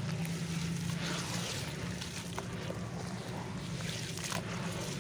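Hands squishing and stirring crumbled clay mud in a tub of water: wet sloshing and swishing with small gritty clicks, over a steady low hum.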